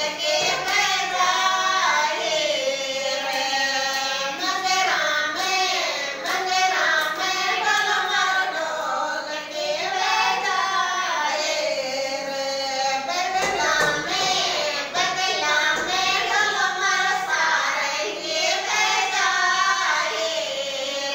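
Group of women singing a Rajasthani khyal folk song together, unaccompanied, keeping time with hand claps.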